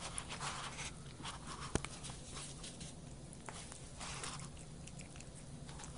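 A cat eating with its paw from a plate, making soft licking and chewing noises with scattered small clicks. There is one sharp tap a little under two seconds in, over a low steady hum.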